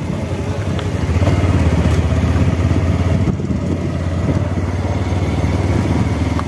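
A small two-wheeler's engine running steadily while riding, with road and wind noise.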